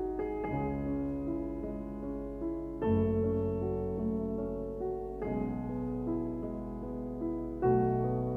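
Background music: slow, soft piano, a new chord struck about every two and a half seconds and left to ring and fade.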